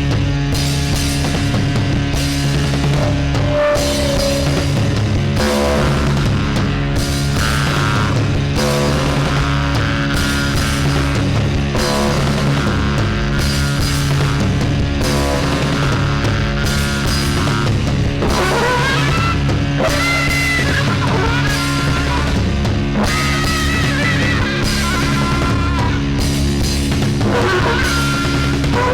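A rock band playing an instrumental stretch of a trance-punk song: a steady beat on the drum kit over a held low drone, with guitar. About two-thirds of the way through, a high, wavering melody line comes in on top.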